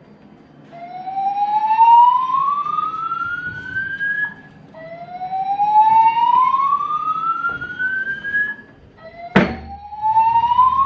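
Fire alarm voice evacuation system sounding its whoop tone: a tone that sweeps up in pitch over about three and a half seconds, three times with short gaps between. A sharp click comes just as the third sweep begins.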